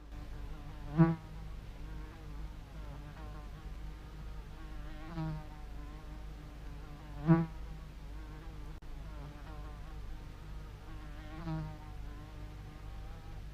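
A fly buzzing, swooping close and away again about four times, loudest briefly about a second in and again about seven seconds in, over a steady low hum.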